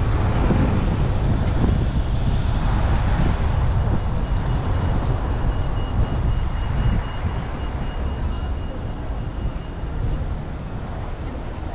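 Car driving along a road: steady tyre, engine and wind noise, easing off a little about seven seconds in.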